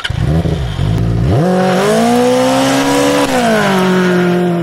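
Benelli 600i motorcycle's inline-four engine revving hard while the rear tyre spins in loose dirt. The revs jump about a second in, climb and hold, then fall away near the end.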